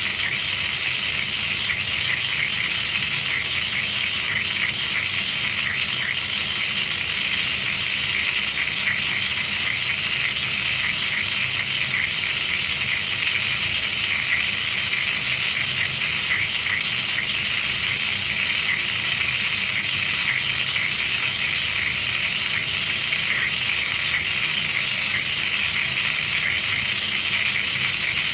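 DIY sinker EDM machine burning into a workpiece: electrical sparks discharging continuously across the gap between electrode and work, without dielectric flushing. A loud, steady, harsh high-pitched crackling hiss.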